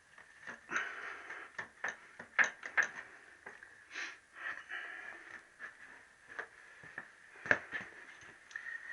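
Irregular knocks, clicks and clunks from handling tools and metal parts at a motorcycle engine on the workbench, the sharpest about two and a half and seven and a half seconds in.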